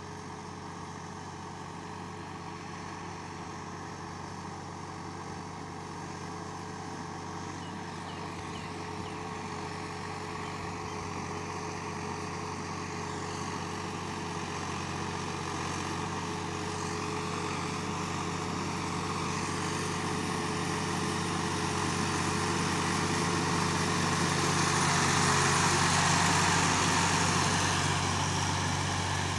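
Ford farm tractor's diesel engine running steadily under load as it pulls a levelling board through wet mud. It grows louder as it approaches, loudest about 25 seconds in, then eases slightly.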